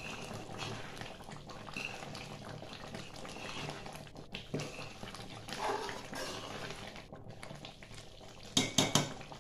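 A metal ladle stirring and scraping through simmering, watery chopped tomatoes in a metal wok, with soft bubbling. Near the end the ladle clanks sharply against the pan several times.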